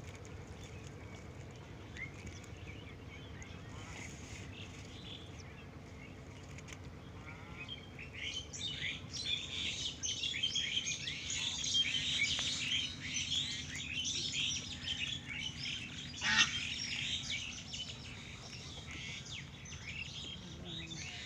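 A flock of birds calling, a dense mass of short chirps and squawks that builds about eight seconds in and thins out after about seventeen seconds.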